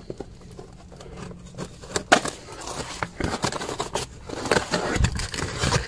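Car suspension parts being handled: scattered clicks, scrapes and crackling as the old and new front stabilizer links are picked up and set down, the sharpest knock about two seconds in, over a steady low hum.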